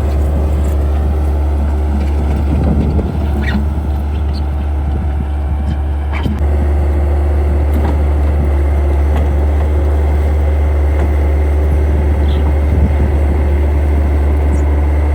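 Skid steer engine running steadily as a loud, low drone, with a few faint knocks over it.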